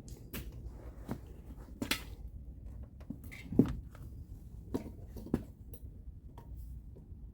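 Scattered light clicks and knocks of a car's outer door handle and its parts being handled, about seven in all, the loudest about three and a half seconds in.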